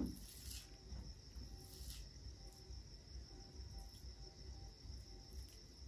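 Faint soft squishing of bare fingers mixing white rice with pork curry gravy, over a steady high-pitched tone that runs throughout.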